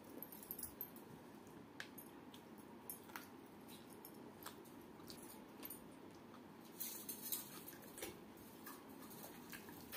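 Quiet close-up eating sounds: soft chewing and small wet mouth clicks, with fingers squishing through watery fermented rice (pakhala) in a steel bowl. A brief louder rustle and clatter comes about seven seconds in.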